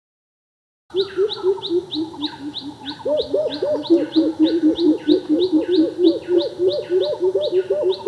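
Birds calling, starting about a second in: a fast, even run of low hooting notes with a repeated high, falling chirp above them, several notes a second.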